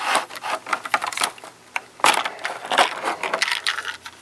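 Toy packaging being handled: a run of irregular crinkles, rustles and light clicks.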